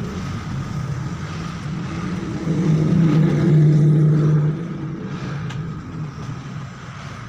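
Electric hair clippers humming steadily as they trim the side of the head for a short faded crew cut. A louder low hum swells from about two and a half seconds in to about four and a half seconds, then eases off.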